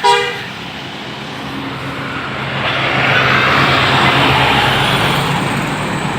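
A bus's telolet musical horn note cuts off right at the start, then the bus engine runs steadily with a rushing road and engine noise that grows louder from about halfway through as the bus goes by.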